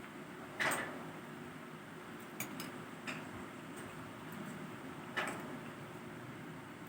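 Eating utensils clinking and tapping against a plate about five times during a meal, the loudest clinks about a second in and about five seconds in, over a steady low hum.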